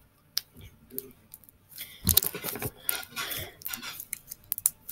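Thick butter slime being squished and stretched by hand, giving a run of sticky clicks and crackles, busiest in the middle of the stretch.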